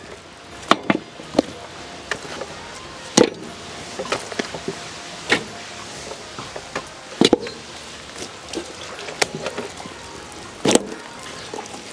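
Raw lamb joints and rib racks being set down into a large metal pot: about ten separate knocks and thuds of meat and bone against the pot, spaced irregularly.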